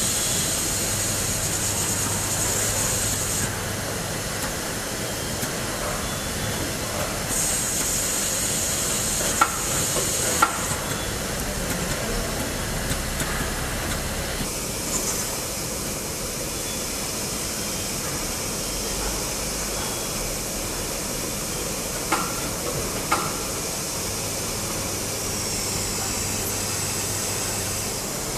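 Steady machine noise of an insert-molding cell with a pneumatic robot: a constant hiss, a high hiss that switches on and off, and sharp clicks, two about ten seconds in and two a little past twenty. A low hum comes in during the first few seconds and again near the end.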